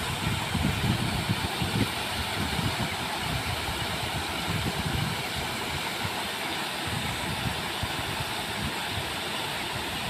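Small waterfall pouring into a pool: a steady rushing noise with an uneven low rumble beneath it.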